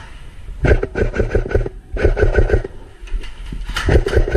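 Airsoft guns firing in three rapid full-auto bursts, each a fast run of sharp shots.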